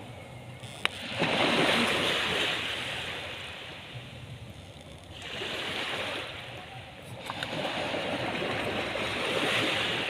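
Sea waves breaking on the shore, surging in three times, each swell rising and fading over a few seconds. A single sharp click comes just before the first wave.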